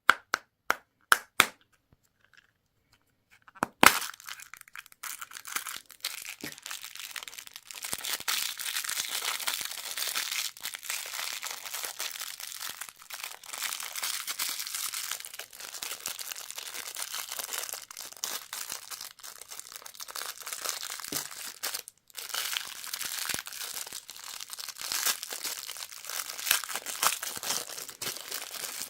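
Candy wrappers crinkling and tearing as they are unwrapped, continuous from about four seconds in. Before that come a few sharp clicks and a louder crack.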